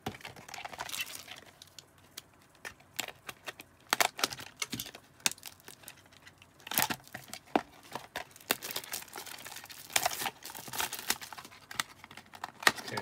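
A sealed trading-card box and its plastic wrap being handled and torn open by hand: irregular crackling and rustling with a few sharp clicks.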